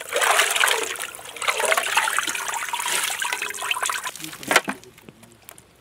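Water pouring and splashing into a vessel for about four seconds, then stopping, with a single sharp knock shortly after.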